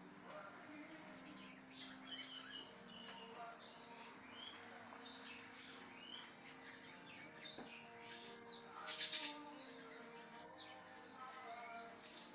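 Lovebird chirping: a run of sharp, high, falling chirps, loudest in a quick cluster of calls about nine seconds in.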